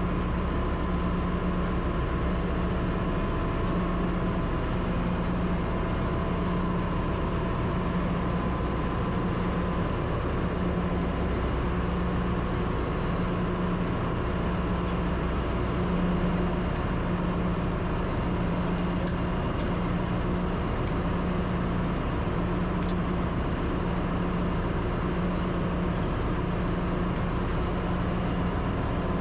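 Steady drone of a ship's engine-room machinery running, a low hum that throbs slowly and evenly, with a faint steady whine above it. A few faint metallic ticks come past the middle.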